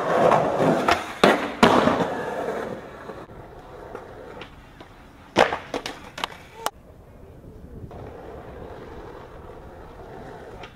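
Skateboard sounds: sharp cracks and landings of the board on concrete in the first two seconds, then a slam a little past the middle, several sharp impacts as a skater and board hit the asphalt, followed by urethane wheels rolling steadily on pavement.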